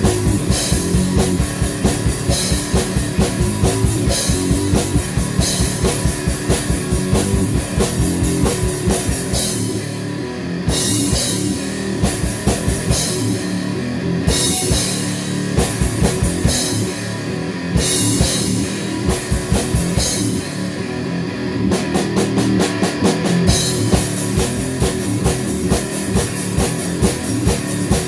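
Heavy rock song with drum kit and guitars, driven by a fast, steady kick-drum beat. The kick drops back for a stretch in the middle, then returns at full pace.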